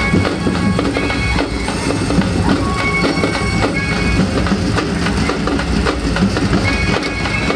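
Loud amplified music from a festival procession band, with dense drumming and short held melody notes over it.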